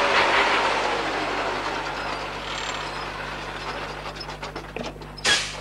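Loaded logging truck's engine running as it pulls in and slows, the engine noise fading away to a low steady idle. A short, sharp burst of noise comes near the end.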